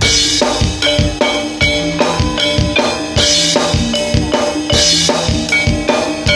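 Live Javanese jaranan ensemble music: drums beating a quick, even rhythm under ringing, sustained notes from tuned percussion, with a cymbal-like crash near the start, about three seconds in and again about five seconds in.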